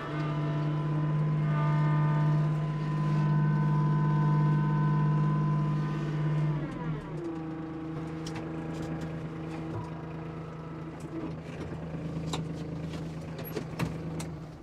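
Kubota LX2610 compact tractor's three-cylinder diesel engine running steadily at raised revs, then throttled down about halfway through to a lower idle. The engine cuts off at the very end, with a few clicks and knocks in the last seconds.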